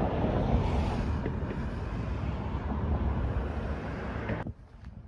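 Wind buffeting the microphone: a steady low noise. It cuts off suddenly a little over four seconds in, leaving a quieter background with faint clicks.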